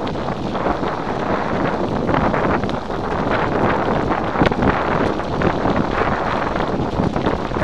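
Wind buffeting the microphone over the crunch of mountain-bike tyres rolling on a gravel road, with scattered small clicks and rattles from the rough surface.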